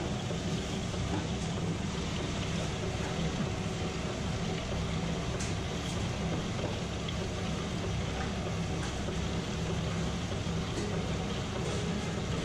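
Electric stone wet grinder running steadily, a constant motor hum and grinding as its stone roller turns pearl millet in the steel drum, with a few faint ticks.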